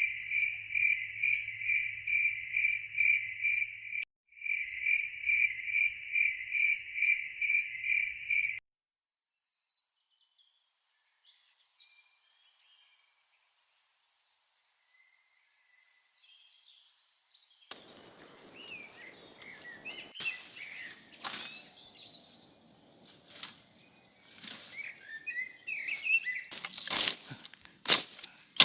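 Cricket-like insect chirping in a fast, steady pulse, with a brief break about four seconds in, that stops abruptly about eight seconds in. After a quiet stretch with faint bird chirps, birds chirp over rustling and several sharp cracks and snaps near the end.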